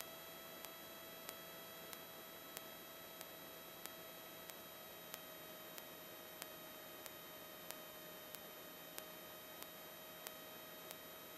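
Faint electrical hiss and a steady thin whine on the aircraft's radio/intercom audio feed between transmissions, with a faint regular tick about every two-thirds of a second.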